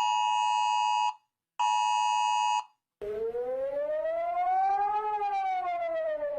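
Emergency alert alarm: a harsh steady two-note attention tone sounds in two bursts of about a second each, separated by short silences. About three seconds in, a siren-like wail starts, rising slowly in pitch for about two seconds and then falling.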